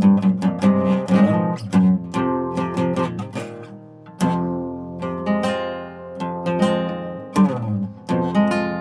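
Acoustic guitar playing a mix of strummed chords and picked notes that ring on. The sound dies away about three and a half seconds in, then a new chord is struck just after four seconds.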